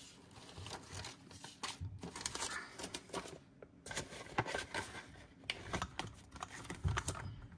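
Rustling and crinkling of clear plastic envelope pages and paper dividers in a ring-bound cash envelope binder as they are flipped through by hand, with irregular light ticks and taps.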